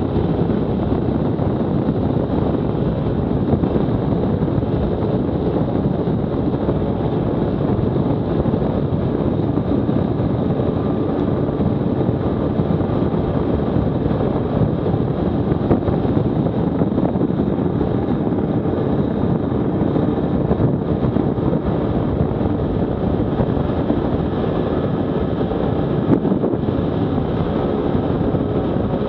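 Stels 800D ATV running steadily while riding, with wind buffeting the microphone.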